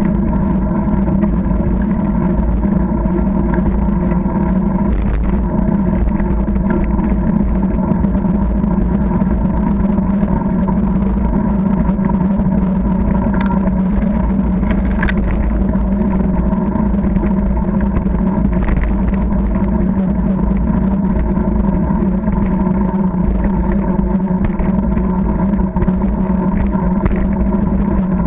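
Wind rumble and rolling noise on a camera mounted on a moving bicycle, with a constant steady hum underneath.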